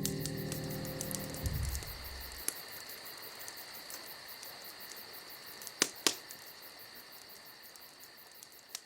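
Piano music fades out in the first two seconds, leaving insects chirping steadily in the night. A few sharp pops from a crackling wood fire cut through, two close together about six seconds in, and the whole sound fades away toward the end.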